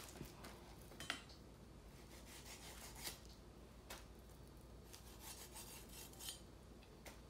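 Faint, scattered rubbing and light knocks of hands handling a raw whole chicken and a kitchen knife on a plastic cutting board, a small sound about once a second.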